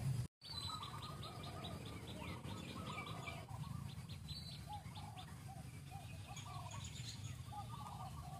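Birds chirping in the background: a quick run of high ticking notes over the first few seconds, and short repeated chirps throughout, over a steady low hum. The sound cuts out for an instant just after the start.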